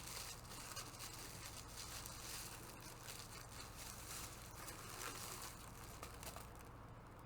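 Faint crinkling and rustling of packaging being handled, with scattered small ticks, over a low steady hum.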